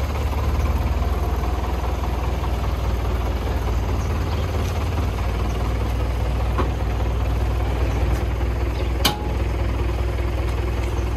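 An old pickup truck's engine idling steadily with a low, even rumble, its turbo engine holding the boat trailer on the ramp. A single sharp click sounds about nine seconds in.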